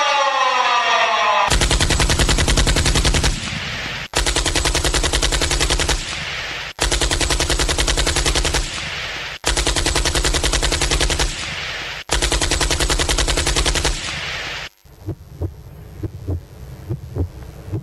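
Recorded machine-gun fire played as a sound effect: five bursts of rapid automatic fire, each about two seconds long with short gaps between them, followed near the end by a few scattered single shots. A siren falling in pitch fades out in the first second and a half.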